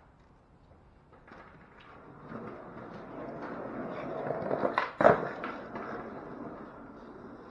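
Skateboard wheels rolling over pavement, growing louder as the board approaches and then fading as it rolls away, with a sharp, loud clack of the board hitting the ground about five seconds in.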